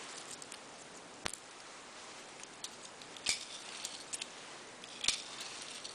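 .22 dummy rounds being dropped one by one into the Remington 550-1's tube magazine: three sharp clicks about two seconds apart, the later two with a short rattle, and a few fainter ticks between them.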